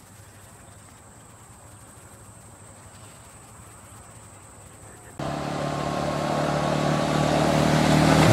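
Faint steady high insect hum, then about five seconds in a four-wheeler ATV's engine comes in suddenly and grows steadily louder as it approaches.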